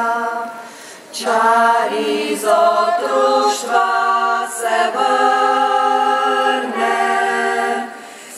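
Women's choir singing a cappella. A held chord ends under a second in, and after a short breath the voices take up a new phrase with moving notes, then hold a long chord that fades near the end.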